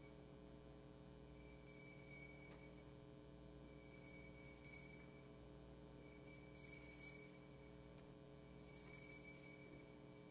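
Near silence: a steady electrical hum from the sound system, with faint high-pitched tones that recur about every two and a half seconds.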